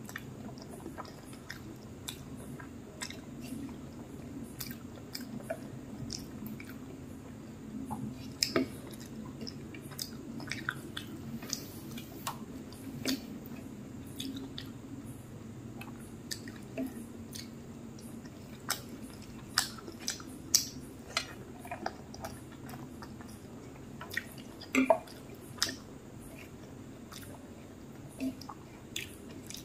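Close-miked chewing and wet mouth smacks of someone eating rice and fish curry by hand, with scattered short clicks and a few louder smacks, the loudest late on, over a faint steady low hum.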